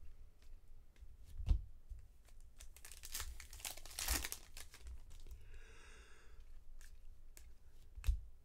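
A foil trading-card pack being torn open and crinkled, with a few sharp clicks and taps as the cards are handled.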